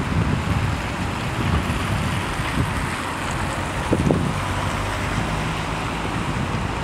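Wind buffeting the microphone in uneven gusts over a low, steady engine rumble from vehicles at the roadside.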